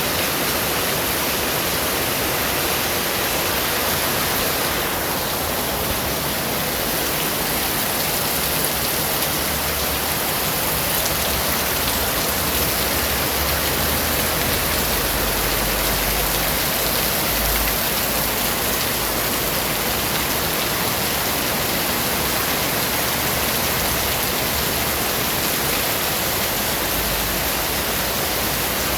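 Steady rain falling, an even hiss, with a low rumble of distant thunder underneath from about nine seconds in and again near the end.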